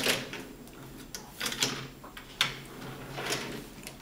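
Several sharp knocks and clatters at irregular intervals over a low steady hum.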